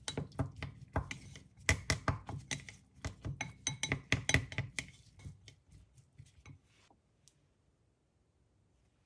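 Kitchenware clinking and knocking: a quick, uneven run of clinks and taps that thins out and stops about seven seconds in.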